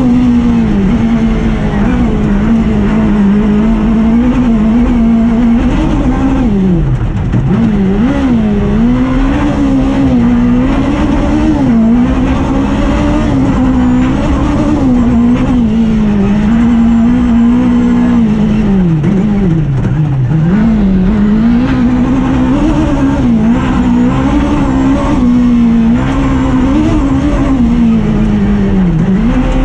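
Suzuki Hayabusa inline-four motorcycle engine of a rally buggy, heard from inside the cockpit, run hard at high revs along a gravel stage. The revs waver with the throttle and drop sharply then climb back twice, about seven seconds in and again about twenty seconds in.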